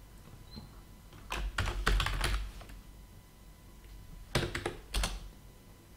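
Computer keyboard being typed on: a run of keystrokes about a second in, then a few more clicks near the end.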